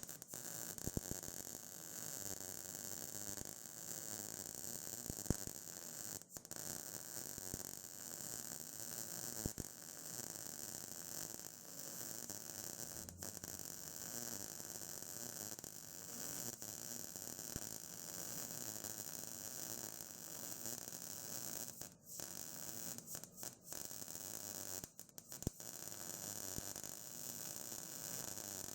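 MIG welding arc on steel, a steady crackling hiss, with a few brief breaks where the arc stops and restarts, most of them between about 22 and 25 seconds in.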